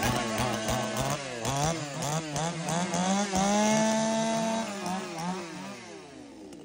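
Chainsaw revving again and again in quick up-and-down bursts, held at high revs for about a second midway, then dropping back and fading near the end.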